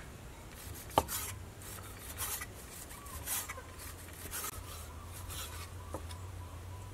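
Cleaver slicing raw snakehead fish meat on a wooden cutting board: a sharp knock of the blade on the board about a second in, then repeated rasping strokes, about two a second.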